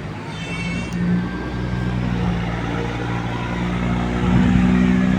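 A motor engine running steadily and growing louder, as if it is coming closer. A brief high-pitched squeal sounds about half a second in.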